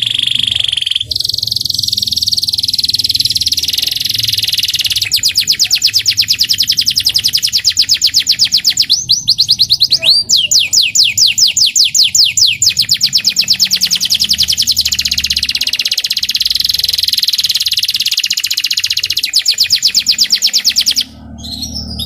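Young local canary singing a loud, fast riwikan trill: long runs of rapidly repeated high notes, broken by a couple of descending swoops about halfway through, stopping about a second before the end.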